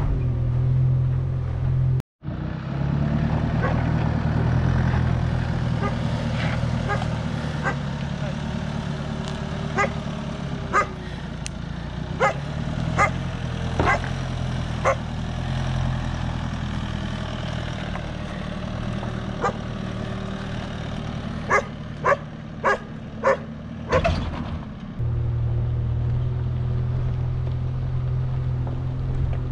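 Chevrolet Colorado ZR2 pickup driving a rocky dirt trail, its engine running with a steady low hum. In the middle section the truck crawls over rocks, with a dozen or so short sharp sounds scattered over it and a quick run of five near the end.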